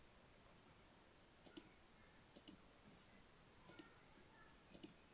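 Near silence with four faint clicks, roughly a second apart.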